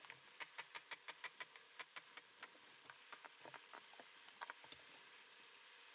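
Faint, irregular light clicks and ticks, several a second at first, then sparser.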